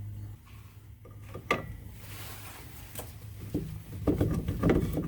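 Metal clinks and knocks of a pry bar and a through-bolt being worked into the lower strut mount at the steering knuckle: a few separate clicks, then a quick run of knocking and rattling near the end as the bolt is wiggled into line.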